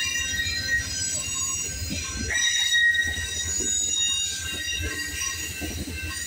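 Amtrak Superliner bilevel passenger cars rolling past on the rails: a steady low rumble of wheels on track under a high, ringing wheel squeal that swells about two seconds in.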